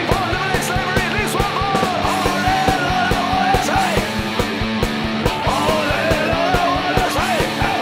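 Fast punk rock song: distorted electric guitar and bass over rapid, steady drumming, with a shouted vocal line on top.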